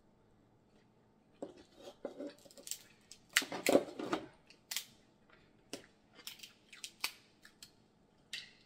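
Cooked snow crab leg shells being cracked and snapped apart by hand: a run of sharp cracks and crunches, loudest in a cluster a little over three seconds in.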